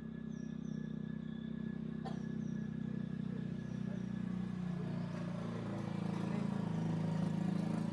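An engine running steadily with a low hum, slowly growing louder, with a single click about two seconds in.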